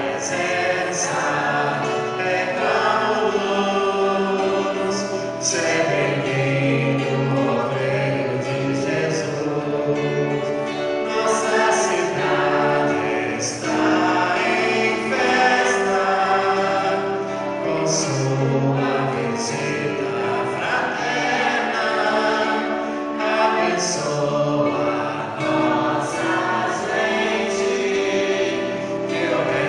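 A choir singing a religious song, many voices together.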